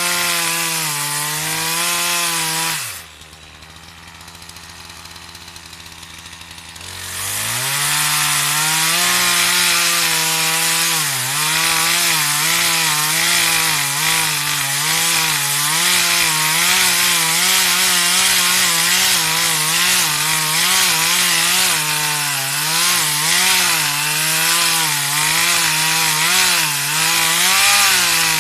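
Partner 340S two-stroke chainsaw cutting wood, its engine pitch wavering up and down under load. About three seconds in it drops to idle for around four seconds, then revs back up and cuts again.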